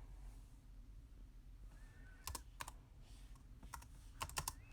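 Light taps on an iPad Pro's glass screen, typing: a few scattered clicks past the middle, then a quick run of taps near the end, over a low steady hum.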